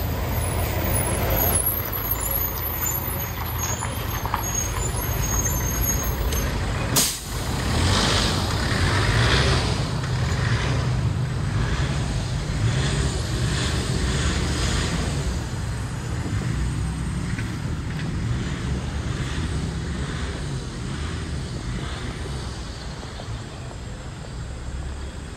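Street traffic: engines and tyres of passing cars and minibuses, a steady low rumble. There is a sharp click with a brief dropout about seven seconds in.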